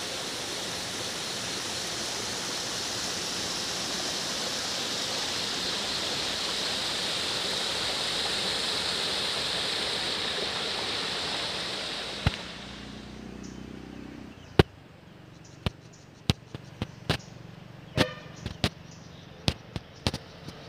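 Steady rush of a small stream cascading over rocks for about twelve seconds, then a quieter stretch broken by a dozen or so sharp, irregularly spaced clicks.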